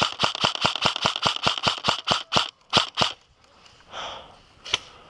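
Airsoft gun firing a rapid string of single shots, about five a second, stopping about two and a half seconds in, then two more shots and one last click near the end.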